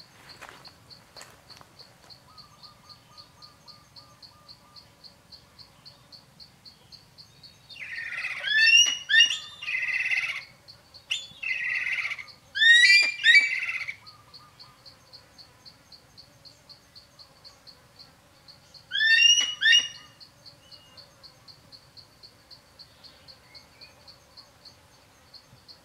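An insect keeps up a steady, high pulsing chirp, about two to three pulses a second, while a bird calls loudly in three bouts, each a quick run of sweeping notes, the last and shortest near the end.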